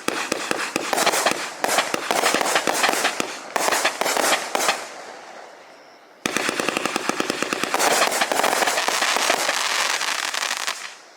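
Raccoon Fireworks 'Fiesta De Alegria' 500-gram aerial cake firing: dense, rapid crackling pops in two long runs. The first fades out about halfway through. The second starts suddenly about six seconds in and stops shortly before the end.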